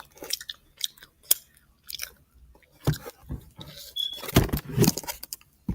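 Close-up mouth sounds of someone chewing gummy candy: irregular wet clicks and smacks, busiest about four to five seconds in.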